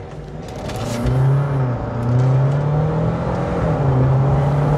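Jeep Wrangler 4xe plug-in hybrid at full-throttle acceleration from a standstill, its turbocharged four-cylinder gasoline engine working together with the electric motors, heard from inside the cabin. The engine note swells over the first second, then climbs in pitch, dropping back at gear changes about two seconds in and again near four seconds.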